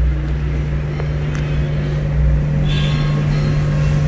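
Road traffic rumble over a steady low hum, with no break.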